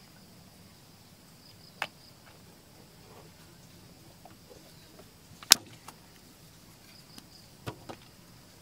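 A few sharp, scattered knocks or taps, the loudest about five and a half seconds in and two close together near the end, over a faint steady insect drone.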